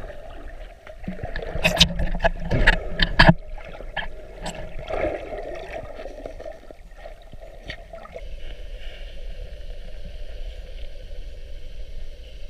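A quick run of sharp clicks and knocks about a second and a half in, then water gurgling and lapping.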